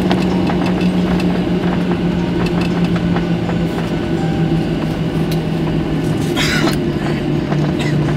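Cabin sound of a taxiing Boeing 737-800: its CFM56-7B turbofan engines humming steadily at taxi thrust, the hum dropping slightly in pitch about six seconds in, with light clicks and rattles of the cabin over the taxiway.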